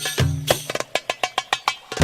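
Darbuka (derbak, Arabic goblet drum) playing a rhythm: a deep stroke just after the start, then a quick run of sharp, high strokes.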